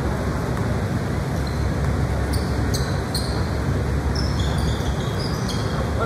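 Basketball game play in a gym: a steady low rumble of court and crowd noise, with a string of short high sneaker squeaks on the hardwood in the middle.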